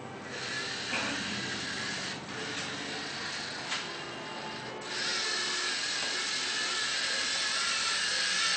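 LEGO Mindstorms NXT servo motors whirring as the robot drives across a concrete floor, getting louder about five seconds in.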